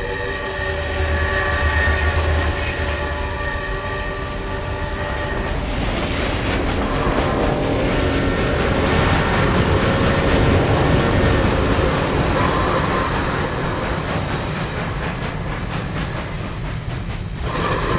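Steam locomotive sounding a multi-note whistle for about five seconds, then the rumbling, hissing rush of the train running past close by.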